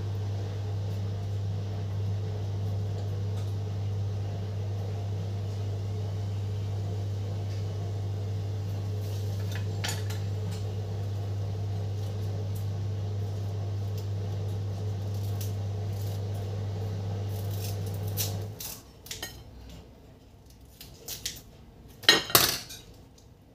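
A steady low hum cuts off about three-quarters of the way through. Then come a few light clicks and, near the end, a loud clatter of a kitchen knife against a ceramic plate as pandan leaves are cut on it.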